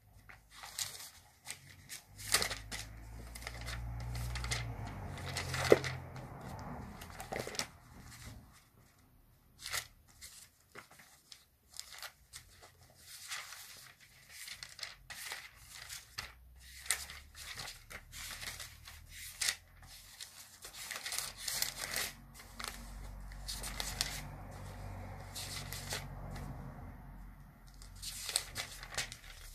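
Thin Bible pages being leafed through and rustled, with irregular crinkles and small clicks, and a low handling rumble now and then.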